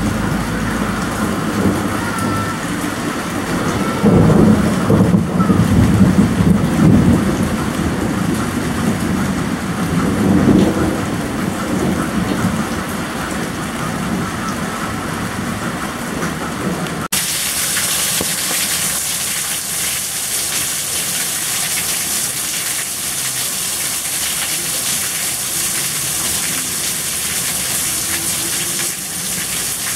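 Rain falling while thunder rumbles, swelling loudest about four to seven seconds in and again around ten seconds. After an abrupt cut about seventeen seconds in, a steady hiss of heavy rain.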